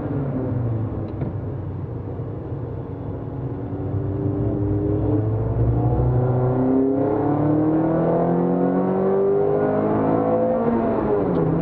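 Peugeot 206 RC's four-cylinder petrol engine heard inside the cabin. It eases off through a corner, then accelerates hard up through the gears: the pitch climbs, drops at a gear change about seven seconds in, climbs again and falls once more near the end.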